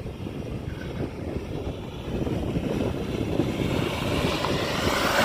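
Off-road vehicle's engine working under load as it drives up a rutted slope towing a trailer, getting louder from about two seconds in as it comes closer.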